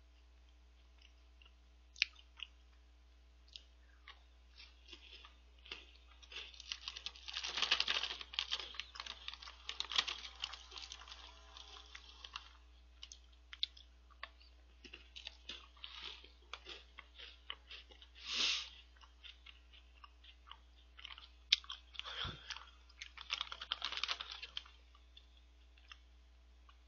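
A person chewing mouthfuls of Choco Byul, a small chocolate star-shaped snack, in spells of irregular crunching with short pauses between.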